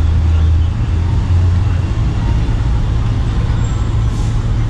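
A steady low rumble, with a brief hiss near the end.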